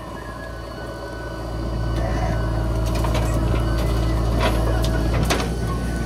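JCB 3DX backhoe loader's diesel engine running and revving up under hydraulic load as the backhoe arm swings back from the truck to the dig. A few sharp knocks or clanks come through in the second half.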